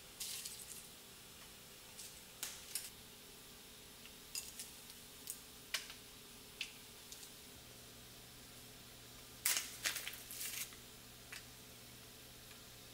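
Scattered light clicks and taps as frozen raspberries are picked from a bowl and set by hand into batter in a metal mini-muffin tin, with a busier cluster of clatters a little past the middle.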